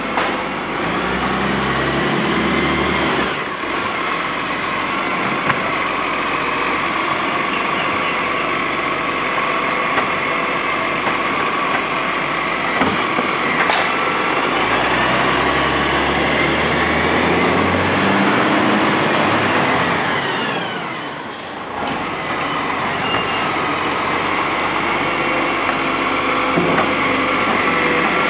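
A side-loading garbage truck's engine and hydraulics running throughout, with a whine that rises over several seconds and then falls away about two-thirds of the way in. A few short hisses of its air brakes come as it stops and moves between bins.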